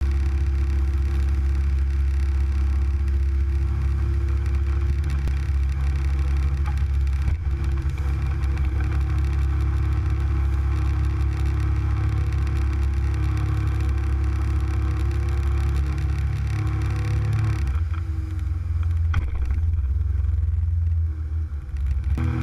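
Boat engine running hard and steady as the boat speeds along, a loud low drone. About three-quarters of the way through, the tone shifts and the higher part of the sound fades, with a short dip in level near the end.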